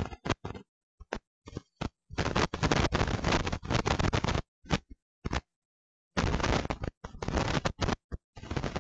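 Harsh hissing noise that cuts in and out abruptly, with short blips and gaps of dead silence between longer noisy stretches about two and six seconds in: a broken, dropping-out audio stream from a recorded live web broadcast.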